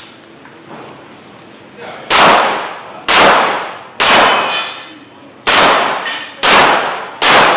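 Six rifle shots in irregular succession, about a second apart with a longer pause after the third. Each is a sharp, very loud crack followed by a short decaying echo.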